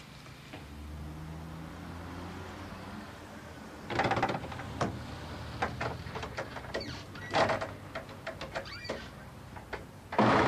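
A wooden door being pushed and shoved: irregular knocks, bangs and rattles with short squeaks, starting about four seconds in, over a steady low hum.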